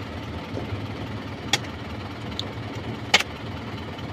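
Isuzu 4HL1 four-cylinder diesel engine idling steadily, heard from inside the truck's cab. Two sharp clicks come about a second and a half in and about three seconds in, the second louder.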